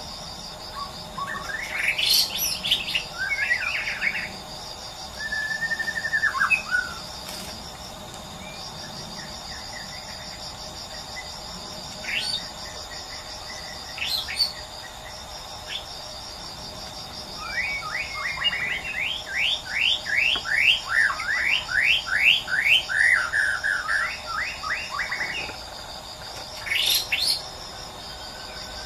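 White-rumped shama singing in separate phrases of clear whistles and sharp notes, then a long fast run of sweeping notes, over a steady pulsing chirr of insects.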